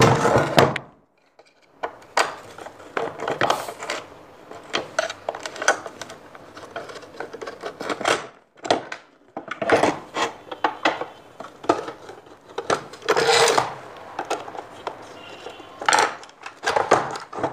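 Screwdriver work and hands handling the die-cast metal housing of an LED street light on a workbench: irregular metallic clinks, scrapes and knocks as the clamp brackets are unscrewed and set down.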